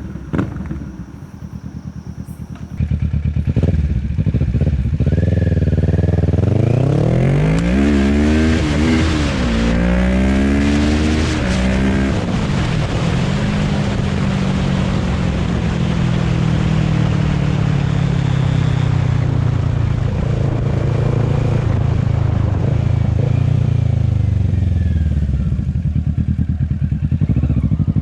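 Kawasaki Ninja 650's parallel-twin engine through a short straight-pipe GP exhaust, very loud: idling, then about three seconds in it is revved up and down several times before being held at a raised, slowly sinking rev that falls back near the end.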